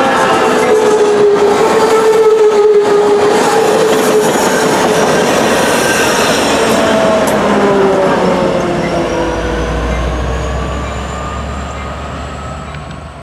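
Amtrak Piedmont passenger train passing at speed: a loud rush of wheels on rails with ringing tones that slowly fall in pitch as the cars go by. A deep diesel rumble comes in from the rear locomotive about two-thirds of the way through, and the whole sound fades as the train pulls away.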